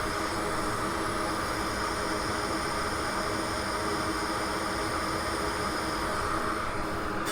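Hot air rework station blowing steadily, a constant fan-and-air hiss with a faint hum, as it heats the solder around the charging-port pads.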